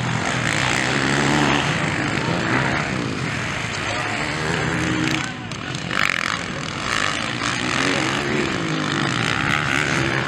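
Motocross bike engines revving, their pitch rising and falling again and again as the riders work the throttle through the track's turns.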